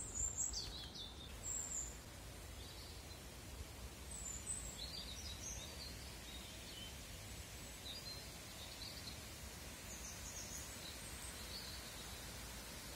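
Small birds singing: short high chirps and brief song phrases here and there, over a steady faint hiss and low rumble of outdoor background.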